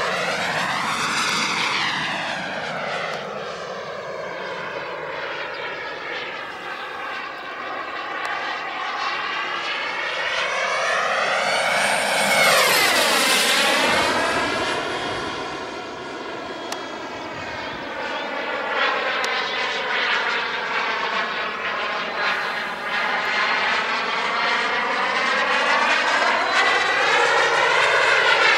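Miniature jet turbine of a radio-controlled de Havilland Vampire model in flight, making passes with a whooshing sound that swells and fades. It is loudest about halfway through, where the pitch drops sharply as it goes by overhead, and it swells again near the end.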